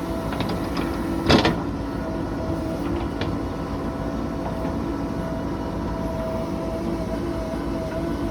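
Heavy diesel engine of earthmoving machinery running steadily, with a steady whine over it and a single loud thump about a second in.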